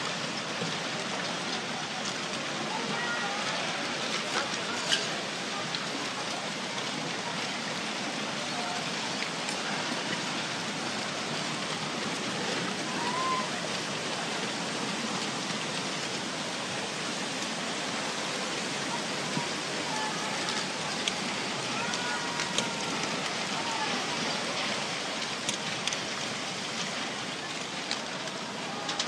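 Tsunami floodwater surging through a town with wrecked houses and debris, a steady rushing noise with occasional sharp cracks of timber and wreckage breaking.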